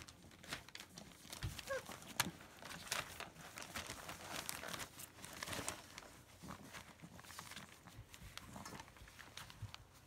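Newspaper rustling and crinkling under German Shepherd puppies moving and scrabbling about on it, with irregular small clicks and scuffs. One brief squeak about two seconds in.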